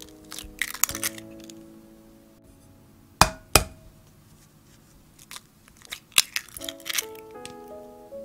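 Eggs being cracked on the rim of a glass bowl: two sharp taps about half a second apart, the loudest sounds, with smaller clicks and crackles of shell breaking and being pulled apart before and after. Gentle background music plays throughout.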